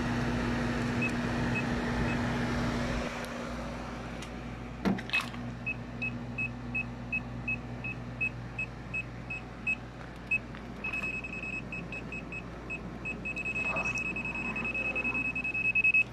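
Aneng PN107 clamp meter's non-contact voltage detector beeping: a few scattered short high beeps, then a regular run of about three beeps a second that merges into a continuous tone near the end as it picks up live voltage from the running air conditioner's wiring.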